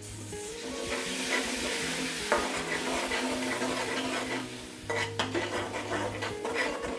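Ginger-garlic paste and ground spices sizzling in a little hot oil in a karai while a spatula stirs and scrapes them around the pan. There are a few sharper knocks of the spatula on the pan, one about two seconds in and a cluster about five seconds in.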